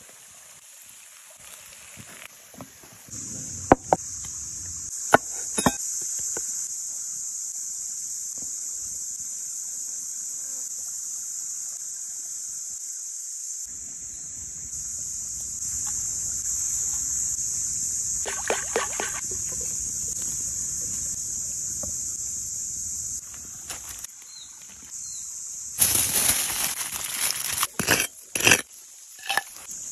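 A steady high hiss of the creekside woods runs under most of it, broken by a few sharp clicks and taps of kitchen tools. Near the end a tool scrapes and digs into dry, crumbly soil in loud, uneven strokes.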